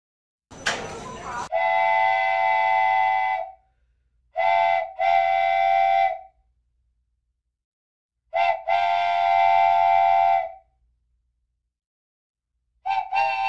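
Train horn sounding in a series of blasts: one long blast, then two short-long pairs, and quick short blasts beginning near the end, with dead silence between them. A brief rush of noise comes just before the first blast.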